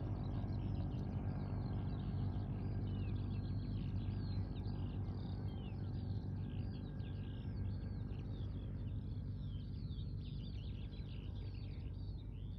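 Several birds singing together, many quick chirps and whistles overlapping, over a steady low hum.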